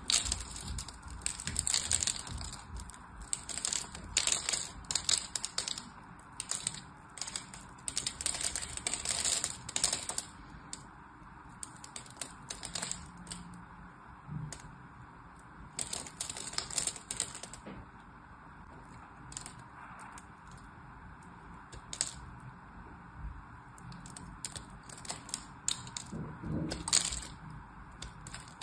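Knife blade cutting into a bar of soap scored in a crosshatch, the small cubes snapping off in quick clicks and crackles. The crackling comes thick for the first ten seconds, thins out, and picks up again briefly twice later on.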